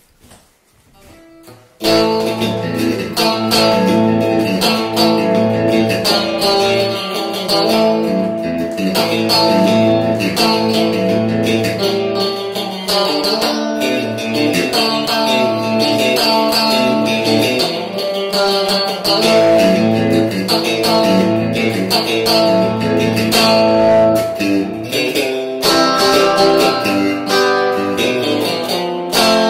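Electric guitar, a Guyatone Stratocaster in an in-between pickup position, played through a Guyatone FLIP300FC tube hybrid combo amp on its normal channel with reverb. Strummed chords and picked lines start about two seconds in and run on without a break.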